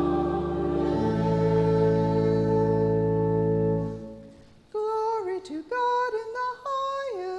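A sung "Amen" by the congregation, held as a full chord over deep organ bass, fades out about four seconds in. Then a single woman's voice begins chanting the opening of the hymn of praise in short sung phrases.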